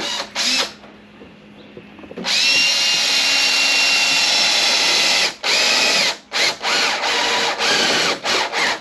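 Power drill drilling an access hole through the underside of a car's hood for paintless dent repair. Two short bursts, then a steady run of about three seconds, then a series of short stop-start bursts as the trigger is pulsed, the whine dipping in pitch as it slows between bursts.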